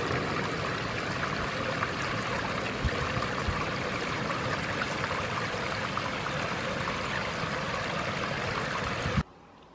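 Water from a small rain-fed woodland stream or waterfall running steadily, cutting off suddenly near the end.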